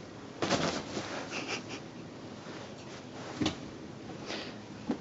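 Scattered rustles and soft thumps as a cat tussles with a fabric kicker toy on a sofa cushion, with one sharper tap about three and a half seconds in.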